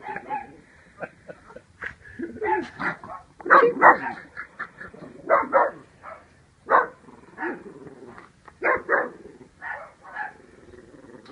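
Shih Tzu barking in short, irregular bursts, the loudest about three and a half to four seconds in: a small dog frightened by a raccoon caught in a cage.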